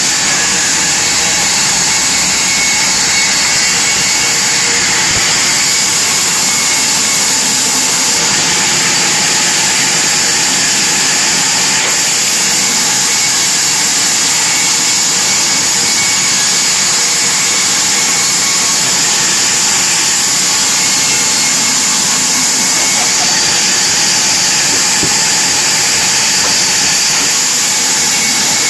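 Large vertical sawmill bandsaw, driven by an electric motor, running and cutting a thick wooden slab as it is fed through the blade: a steady loud high-pitched hissing rasp without a break.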